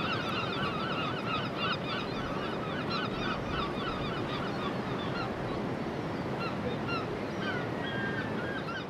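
A flock of birds calling: many short honking calls overlapping, thick at first and growing sparser toward the end, over a steady rushing background.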